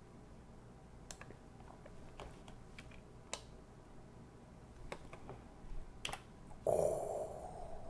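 Scattered computer keyboard and mouse clicks, single taps a second or so apart, over faint room tone. Near the end there is a brief burst of breathy noise, the loudest thing heard.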